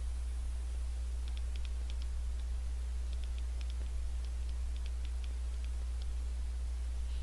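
Quick, irregular light clicks of typing on a smartphone touchscreen, in two runs from about a second in until near the end, over a steady low hum.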